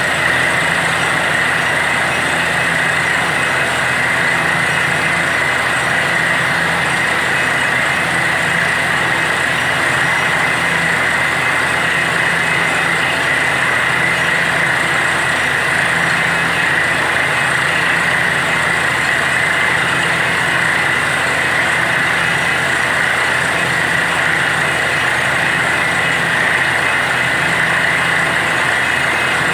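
Truck-mounted borewell drilling rig drilling, a steady loud din of its engine and air compressor with compressed air blasting water and rock cuttings out of the bore.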